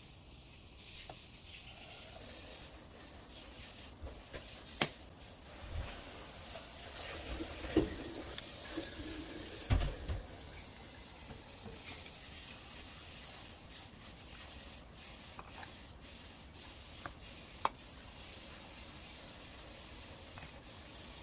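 Quiet kitchen handling sounds: a few sharp clicks and knocks, the loudest about five, eight and ten seconds in, over a low steady hiss.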